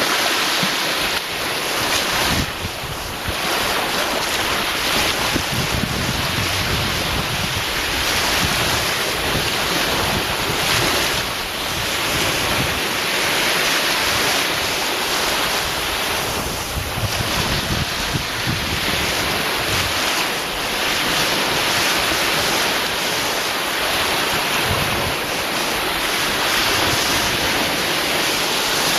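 Sea surf: a continuous rush of breaking waves that swells and eases every few seconds.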